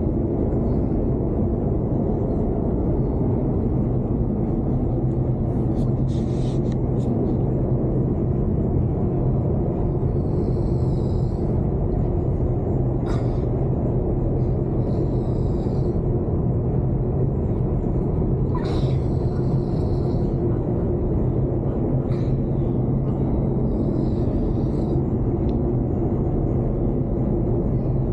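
A man snoring in his sleep, with faint breathy snores recurring about every four seconds, over a loud, steady low rumble.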